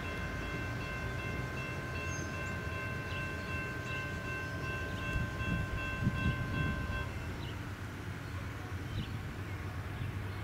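Amtrak train led by a GE Genesis diesel locomotive approaching, its low rumble growing. Over it a steady chord of several notes, typical of the locomotive's horn sounding for the crossing, is held and then stops about seven seconds in.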